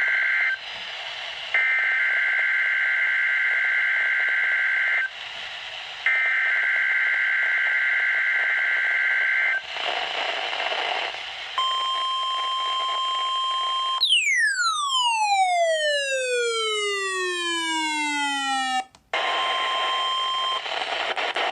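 NOAA Weather Radio test signals over radio static hiss: three long bursts of warbling two-tone SAME data, then the steady 1050 Hz warning alarm tone. About two seconds into the alarm tone, a long falling sweep tone with many overtones cuts in and glides down for about five seconds, then the alarm tone returns briefly.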